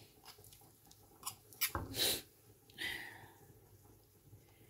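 A metal spoon and stone pestle clicking and scraping against a stone mortar of chilli paste. There are scattered light clicks, with a short louder scrape about two seconds in and another around three seconds in.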